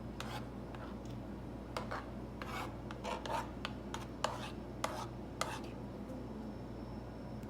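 Kitchen utensils scraping against a pan or dish, about ten short scrapes over the first five and a half seconds, over a steady low hum.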